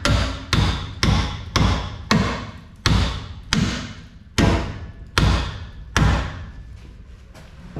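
Hammer striking steel: about ten heavy blows at roughly two a second, spacing out toward the end and stopping about six seconds in, each with a short ringing tail.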